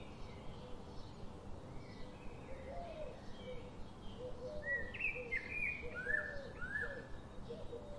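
Birds chirping and calling over a steady background hiss: many short sliding whistles, low and high, growing busier and louder about halfway through.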